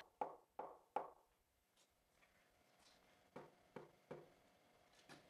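Light knocks on a granite slab's cut-out disc as it is pressed and tapped by hand: three in the first second, three more about three and a half seconds in, and one near the end.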